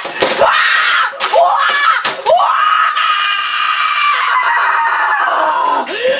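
A boy screaming in a rage, with several sharp knocks of a computer keyboard slammed against the desk in the first two seconds. After that comes one long, drawn-out scream that rises and then slowly sags.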